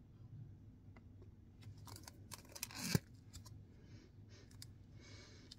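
Faint clicks and crackles of a plastic clamshell of scented wax melts being handled, with a short rising sniff at the wax that ends sharply about three seconds in.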